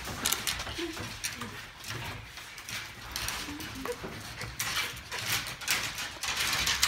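West Highland white terriers scrabbling and scuffling in a wooden pen: irregular claw clicks and scratchy rustles, busiest in the second half.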